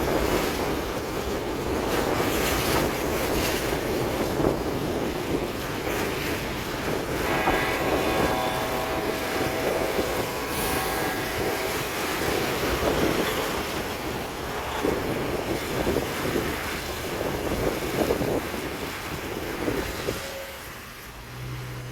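Heavy rushing wind and road noise inside a car driving through a storm. About a third of the way in, a steady pitched tone sounds for roughly four seconds over the noise, and the rush eases near the end.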